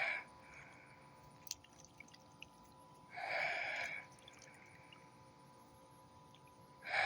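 Water splashing in short bursts about a second long, a few seconds apart: a baby bird bathing in a bird bath.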